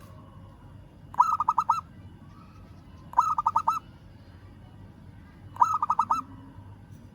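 Zebra dove (perkutut) cooing: three short phrases about two seconds apart, each a quick run of four or five rolling coo notes. This is the call used to summon a rival.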